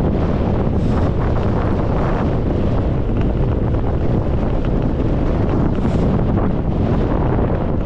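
Wind rushing over the microphone while riding a bicycle: a loud, steady buffeting roar.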